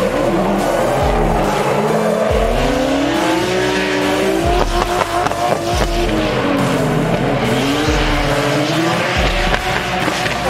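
Drift cars' engines revving up and down as they slide, with tyres squealing. Background music with a steady bass beat runs underneath.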